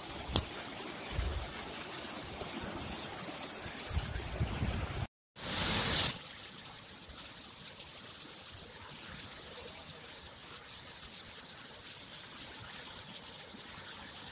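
Floodwater rushing through a river barrage: a steady hiss of flowing water. About five seconds in the sound drops out for a moment and comes back briefly louder, then settles to a quieter steady rush.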